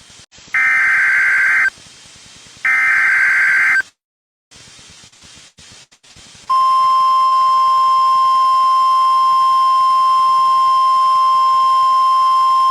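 Emergency Alert System SAME header: two loud, roughly one-second screeching digital data bursts with short gaps between them, then, about six and a half seconds in, a single long steady alert tone begins, signalling that a weather warning follows.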